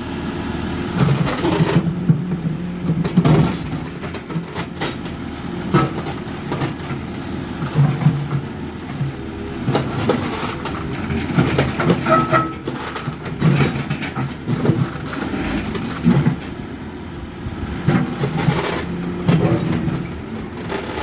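JCB 3CX Eco backhoe loader's diesel engine running under load while the backhoe digs, its note swelling and easing over and over as the hydraulics work. Short knocks are scattered throughout.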